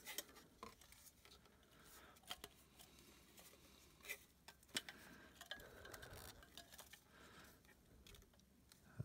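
Faint handling noise of a plastic collapsible LED camping lantern being turned over in the hands: a few scattered light clicks and taps of its plastic parts, with soft rustling between.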